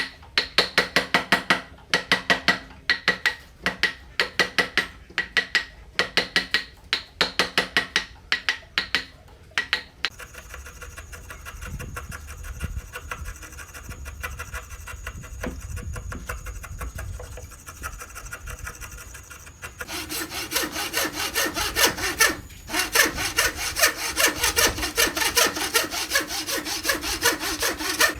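Hand saw cutting wood in rapid, even back-and-forth strokes. About ten seconds in the strokes give way to a quieter stretch of low, steady rumbling noise, and at around twenty seconds the sawing comes back, louder and denser.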